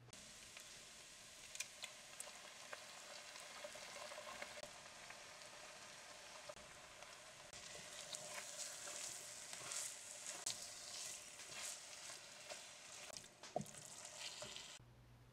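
Food sizzling and crackling in an enameled cast iron pot as it is stirred, with scattered clicks of the utensil against the pot, one sharp knock near the end. The sizzle cuts off suddenly shortly before the end.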